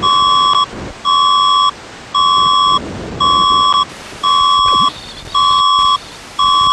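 An electronic emergency alert beep sounds seven times, about once a second. Each beep is a buzzy tone near 1 kHz lasting about two-thirds of a second.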